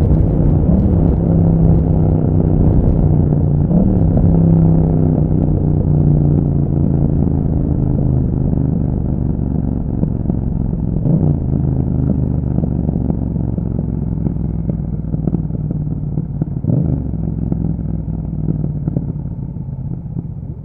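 Yamaha MT-07 parallel-twin engine running through an aftermarket Akrapovic exhaust while riding. The engine note drifts slowly lower and quieter, with a few brief blips in pitch along the way.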